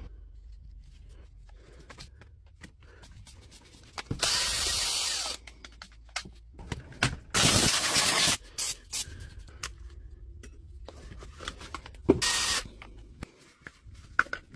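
Workbench repair sounds from taking apart a DeWalt DCH253 cordless rotary hammer: scattered clicks and knocks of parts and hand tools being handled, broken by three loud hissing bursts of about a second each, around four, seven and a half and twelve seconds in.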